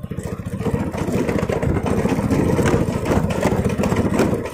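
Motorcycle engine running steadily as the bike rides over a rough stone track, with scattered knocks and jolts from the bumps.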